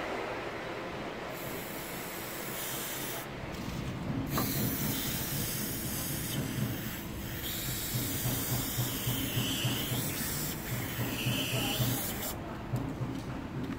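Aerosol can of Decapant 585 paint stripper spraying onto painted steel, a hiss in several long bursts with short pauses, stopping about a second before the end.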